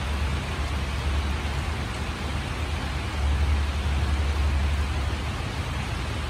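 Steady rain with an even hiss, over a low rumble that grows stronger about three seconds in.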